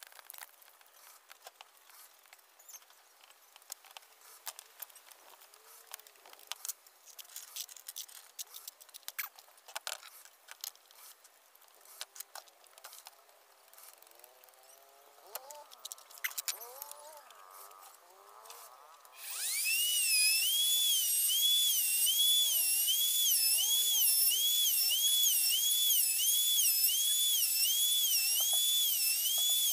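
Electric hand router switching on about two-thirds of the way in: a high motor whine rises and then holds, its pitch wavering up and down a little over once a second as it routs a design into a wooden board. Before it, only faint scattered clicks.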